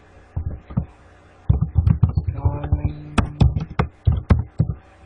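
Computer keyboard being typed on: a couple of single key clicks, then a quick, uneven run of clicks from about a second and a half in.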